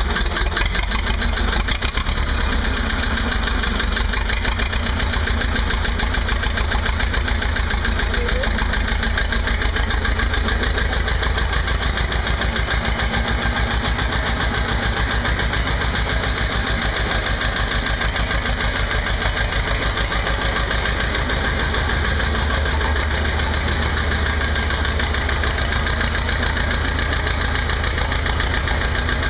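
1979 Belarus 250 tractor's two-cylinder air-cooled diesel idling steadily just after a cold start, with a fast, even beat of firing pulses.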